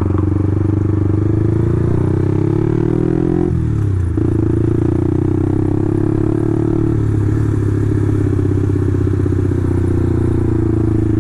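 Motorcycle engine running loud and steady through an aftermarket exhaust. About three and a half seconds in the engine note drops sharply, then picks up again.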